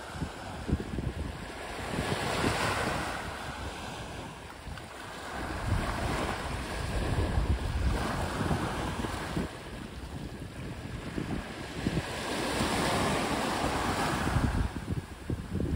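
Small sea waves breaking and washing up a pebbly beach, the surf rising and falling in surges every few seconds, with wind buffeting the microphone.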